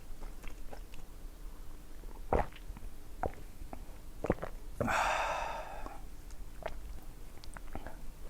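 Close-up eating sounds from a person eating: several sharp mouth clicks, then a loud breathy noise lasting about a second, about five seconds in.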